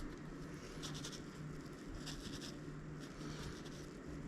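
A wet towel rubbed over a painted bicycle fender in three short bursts of quick scrubbing strokes, smudging wet paint, over a low steady hum.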